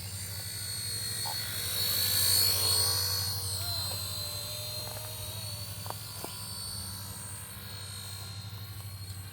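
Small radio-controlled helicopter in flight, its motor and rotor making a steady high whine over a low pulsing rotor beat. It gets louder as it passes close about two to three seconds in, then eases off.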